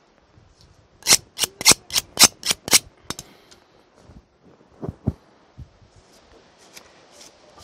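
A quick run of about seven sharp knife strikes on a hard surface, roughly four a second, then two softer knocks a couple of seconds later.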